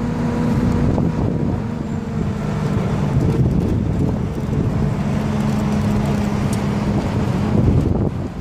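Open-top city bus running through traffic: a steady low engine hum with road noise and wind rushing over the microphone.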